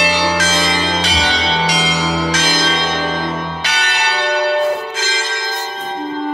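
Bells struck one after another in a slow melody, about one note every two-thirds of a second, each note ringing on. Under them runs a low sustained chord that drops away about four seconds in.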